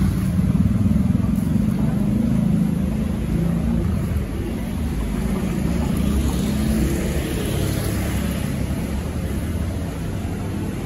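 City street traffic: motor vehicles running past in a steady low rumble of engines and tyres, one passing more closely with a rise and fade of hiss about two-thirds of the way through.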